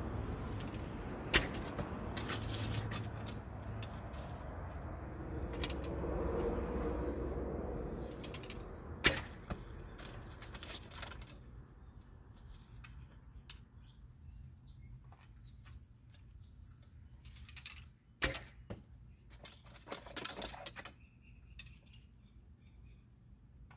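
Short horse bow (55 lb draw) shot twice, about a second and a half in and again about nine seconds in, each release a sharp string snap. A steady background rush fades out about halfway. Near the end come clicks and rattles of arrows being handled and nocked, with faint bird chirps.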